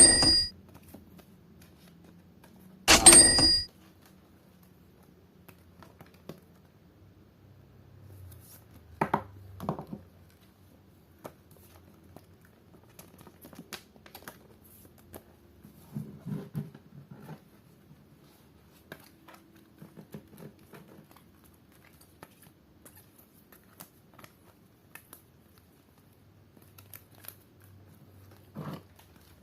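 Two sharp tears of foil booster-pack wrappers about three seconds apart, followed by soft rustling, clicks and taps of trading cards being handled.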